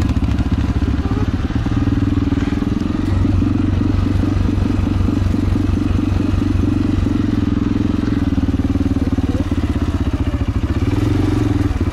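ATV engine running steadily under throttle as the quad is ridden through snow, heard from on board the machine.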